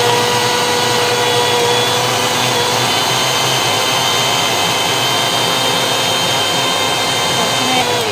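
Electric mixer grinder running steadily at full speed, churning milk cream with ice water to separate out the butter. Near the end the motor is switched off and winds down, its pitch falling away.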